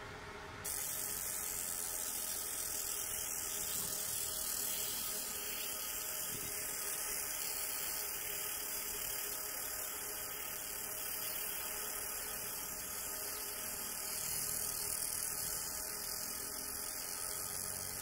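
50 W fiber laser marking machine firing on a 0.5 mm brass sheet. A steady hiss sets in abruptly about a second in and holds even as the beam works through the design.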